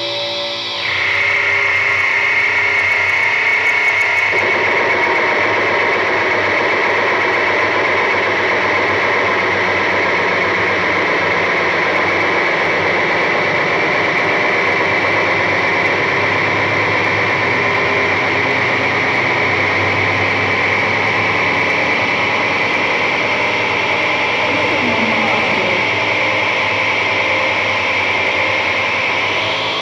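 Harsh noise: a loud, unchanging wall of static-like noise with a bright hiss on top. It cuts in about a second in, replacing distorted electric-guitar music.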